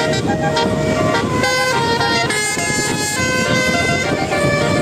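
Telolet multi-tone air horn playing a tune, its notes changing in quick steps, over a steady low rumble.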